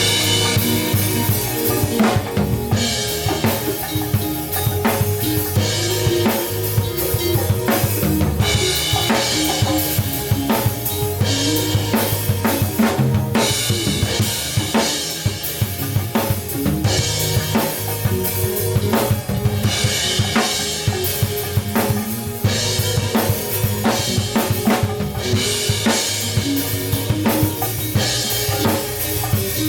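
A band playing a song live, with the drum kit to the fore: kick drum, snare and cymbals over a steady bass line and other pitched instruments.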